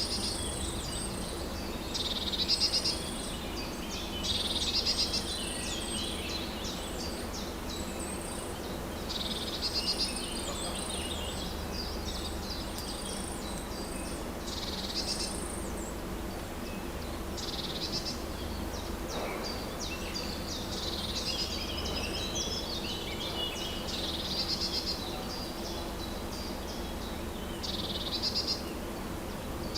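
Songbirds singing in woodland: short, bright, trilling phrases from several birds come every two or three seconds. A steady low hum runs underneath.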